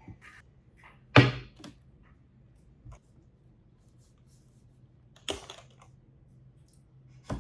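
A few separate sharp knocks or clacks of hard objects being handled, the loudest about a second in, another a little past five seconds and one near the end, with faint ticks between them over a low steady hum.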